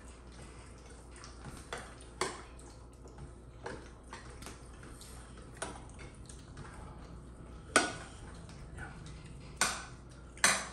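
Dishes and utensils clinking and knocking: about half a dozen separate sharp strikes, irregularly spaced a second or two apart, over a low steady hum.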